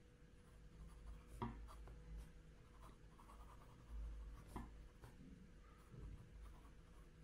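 Medium-point Jowo nib of an ebonite fountain pen writing on paper, a faint, light scratch of nib strokes with a couple of brief ticks. The nib is writing smoothly with generous ink flow.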